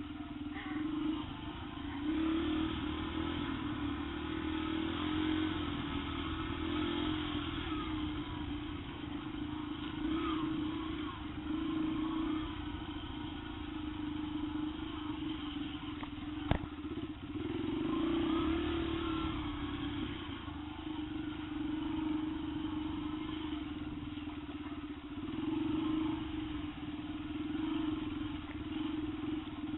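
Yamaha TTR125 trail bike's small single-cylinder four-stroke engine running, swelling and easing every couple of seconds as the throttle is worked. A single sharp knock about halfway through.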